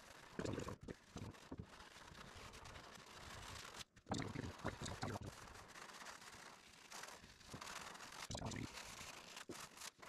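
A squeegee being rubbed over vinyl masking stencil on a car's painted hood, a soft scraping swish that comes and goes, with a few short, low, muffled sounds near the start, around the middle and near the end.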